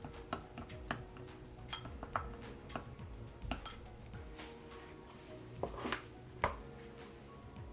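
Irregular light clinks and knocks of dishes and utensils being handled, about a dozen small strikes with the loudest near the end, over soft background music.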